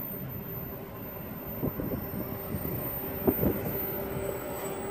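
Rhaetian Railway Ge 4/4 II electric locomotive hauling a regional train away from the station at low speed: a steady electric hum and whine, with a few clacks of wheels on the track, the loudest about three seconds in.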